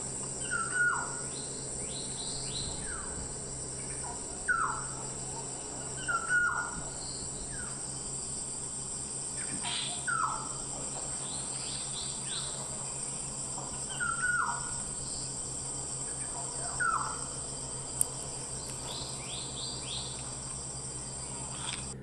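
Birds calling in the open over a steady high insect drone: a short falling call repeated every couple of seconds, with quicker higher chirps between, and a faint steady low hum underneath.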